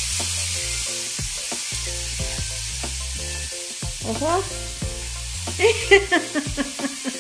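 Hot oil sizzling steadily in a frying pan, over background music with stepping bass notes.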